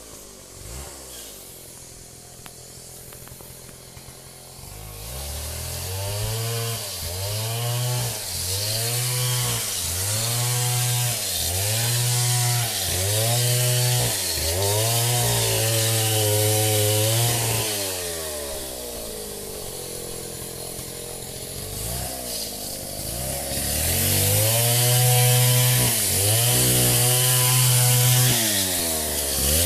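Chainsaw cutting timber, its engine revving up and dropping back about once a second through repeated cuts. It is quieter for the first few seconds and has a lull of a few seconds about two thirds of the way through.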